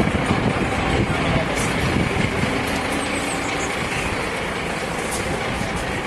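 A heavy vehicle's engine idling steadily.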